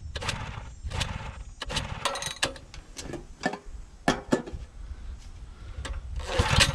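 Scattered clicks and knocks of hands working the controls of a portable gasoline generator, then near the end its engine fires on the recoil start and begins to run.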